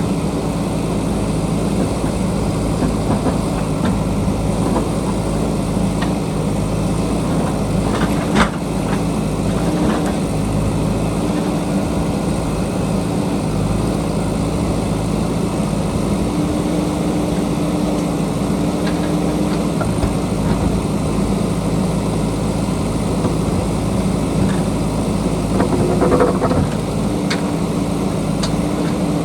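JCB backhoe loader's diesel engine running steadily while digging, with one sharp knock about a third of the way through and a brief clatter near the end.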